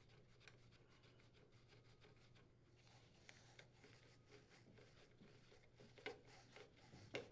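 Near silence: faint ticks and rubbing of a screw being threaded to fasten grounding wires to a cooktop's metal base, with two sharper clicks near the end over a faint low hum.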